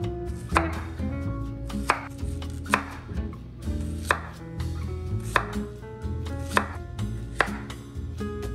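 Chef's knife slicing a zucchini into rounds on a wooden cutting board: a sharp knock of the blade on the board about once a second, with fainter cuts in between.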